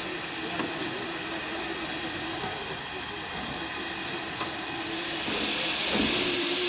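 USATC S160 2-8-0 steam locomotive standing with steam hissing steadily from its front end. The hiss gets louder and brighter about five seconds in.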